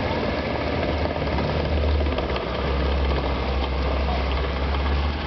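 Motorboat engine running with a steady low hum.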